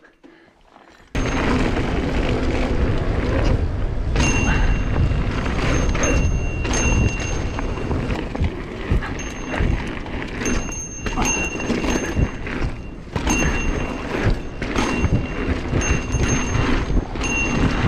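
Mountain bike riding fast down a dirt trail: wind buffeting the camera microphone over tyre rumble and rattling knocks from the bike on rough ground, with a thin high whine coming and going. The noise sets in about a second in.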